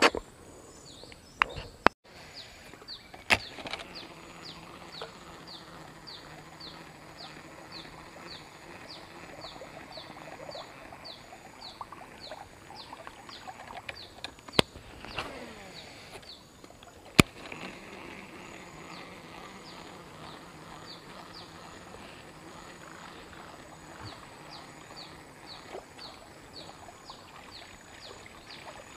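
Outdoor wildlife chorus with a high, falling chirp repeated about twice a second, pausing briefly past the middle, over a faint steady hum. A few sharp clicks come from handling the rod and reel, the loudest about three seconds in and twice around fifteen to seventeen seconds.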